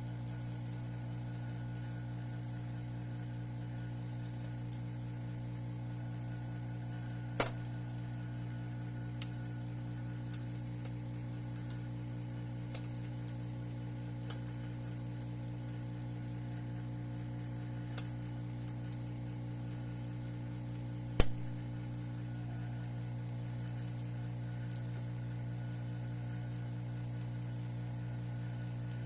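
Steady electrical hum from the silver-casting equipment, with about six sharp clicks scattered through it; the loudest clicks come about seven seconds in and about twenty-one seconds in.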